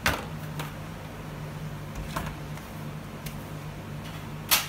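A paste roller set down in a plastic paint tray with a sharp knock, then a few faint clicks and a brief sharp noise near the end as the aluminium stepladder is handled, over a steady low hum.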